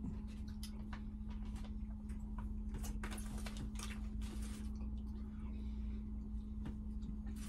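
Faint rustles and small clicks of people eating chips out of paper and foil wrappers, over a steady low hum.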